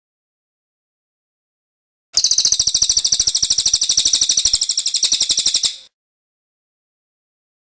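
A small songbird's loud, rapid chatter of evenly repeated high notes, more than ten a second, starting about two seconds in and stopping abruptly after nearly four seconds.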